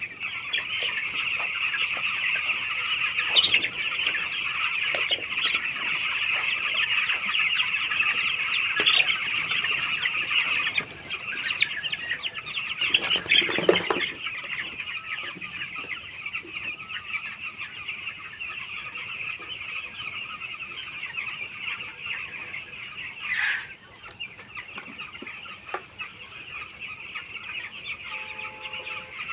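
A large flock of 13-day-old poultry chicks peeping continuously in a dense, high-pitched chorus, louder for the first ten seconds or so and then quieter. A brief rustling knock comes about 13 seconds in, and a single louder falling call near 23 seconds.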